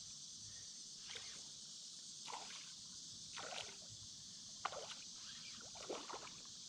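Soft water splashes and sloshes from a hooked smallmouth bass thrashing at the surface as it is drawn in, about five short splashes spread through, over a steady high insect buzz.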